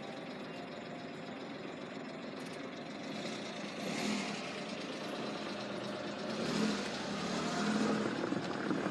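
Road vehicle engines idling and pulling away, with the sound swelling about four seconds in and again near the end as vehicles pass.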